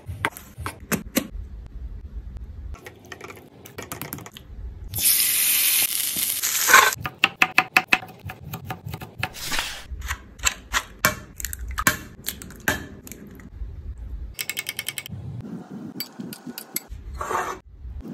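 A run of kitchen food-prep sounds: a knife slicing chicken breast on a wooden cutting board, then many sharp clicks and taps from handling eggs in a plastic carton and from utensils. A loud hiss lasts under two seconds about five seconds in.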